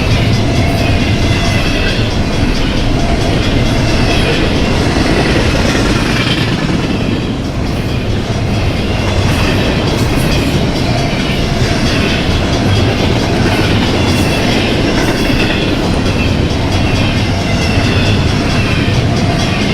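Freight train cars rolling past: a steady rumble with wheels clicking over the rail joints.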